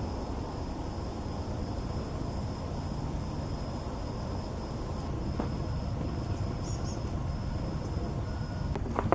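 Outdoor ambience: a steady low rumble under a faint, steady, high-pitched insect drone, with two short bird chirps about two-thirds of the way in.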